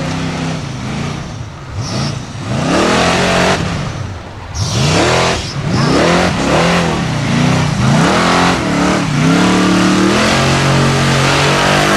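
Formula Offroad buggy's engine revving hard in repeated rises and falls as it climbs a steep dirt bank with wheels spinning. Near the end it holds a steady high rev, then a lower steady note.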